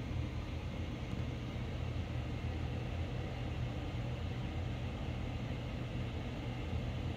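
Aquarium filter running: a steady low hum with a soft even hiss, unchanging throughout.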